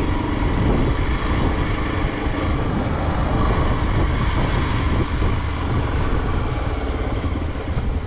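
Hero Xpulse 200's single-cylinder engine running as the motorcycle rides along a rough, narrow road, with wind rumble on the camera microphone.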